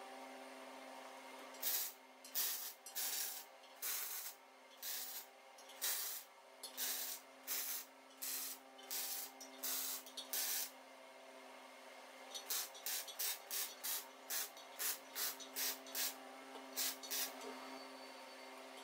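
MIG welder tack welding a steel wheel centre into a tractor rim, each tack a short crackling hiss of the arc. About a dozen longer tacks come in the first half, then a quicker series of shorter ones, over a steady low hum.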